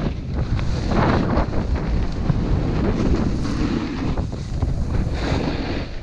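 Wind buffeting the microphone of a snowboarder's action camera at speed, over the hiss of the snowboard sliding and carving across snow, swelling in surges about a second in and again near the end.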